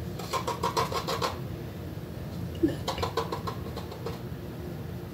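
Quick clicking and rattling in a small plastic treat tub, in two bursts (a longer one near the start and a shorter one about three seconds in), over a steady low hum.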